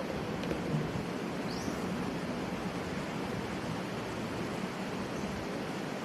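Steady, even background hiss of outdoor ambience, with a faint short rising chirp about a second and a half in.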